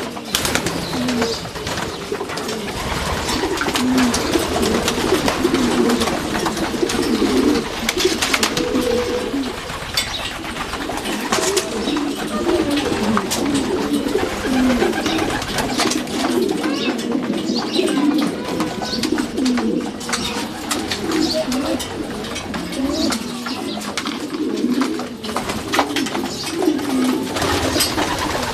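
A flock of racing pigeons cooing, many overlapping coos without a break, with scattered sharp clicks among them.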